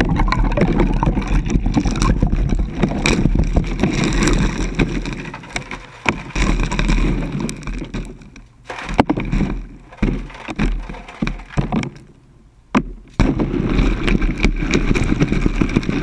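Ice cubes tipped into a bucket, clattering and rattling straight onto the GoPro at the bottom. A dense pour for the first six seconds or so, then scattered knocks as the cubes shift and settle, then another dense pour near the end.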